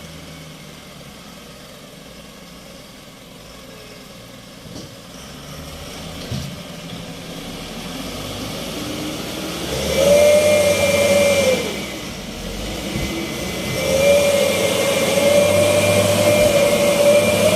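Heavy diesel engine of a truck or motor grader running, then revving hard with a loud steady whine about ten seconds in; it eases off briefly, then revs again and climbs slightly near the end.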